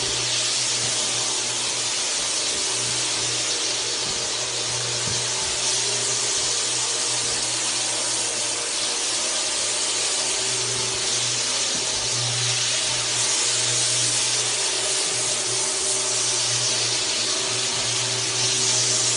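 Single-disc rotary floor buffer running steadily while buffing a parquet wood floor: a constant motor hum under a strong, even hiss from the pad working the wood.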